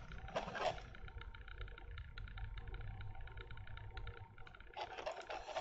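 Quiet room tone with a steady low rumble, faint small ticks and a brief soft rustle about half a second in.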